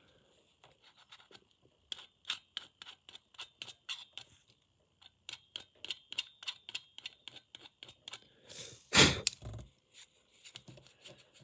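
Quick scratching strokes on the plastic of an opened Logitech M185 mouse as its edges are scraped clean, a few strokes a second in two runs. About nine seconds in, a single loud, short puff of breath is blown onto the parts.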